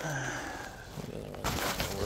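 A man's short wordless vocal sound, like a sigh or hum, followed about one and a half seconds in by a rustle of the handheld camera being handled and moved.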